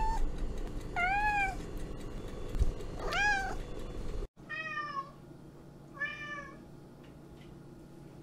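Domestic cat meowing: short meows that rise and fall in pitch, about two seconds apart. The first is caught at its tail end, and two more follow. After a sudden brief break about four seconds in come two higher-pitched meows about a second and a half apart.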